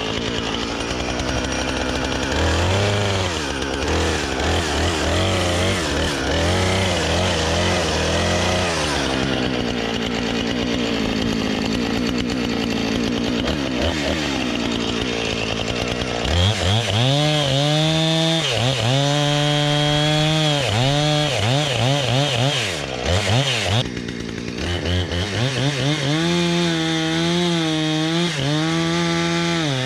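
Husqvarna 455 Rancher two-stroke chainsaw cutting into a black birch, its engine pulled down low under load. About halfway through it runs at high revs, with the pitch repeatedly dipping and climbing back as the throttle is worked.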